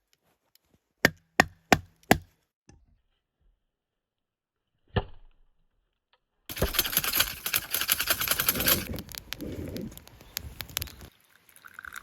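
Chopping: four sharp knocks in quick succession, about a third of a second apart, then one more a few seconds later. After that comes a longer stretch of dense crackling and hiss.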